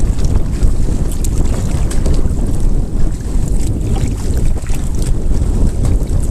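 Strong wind buffeting an action camera's microphone, a loud, rough low rumble, with choppy water splashing against a canoe.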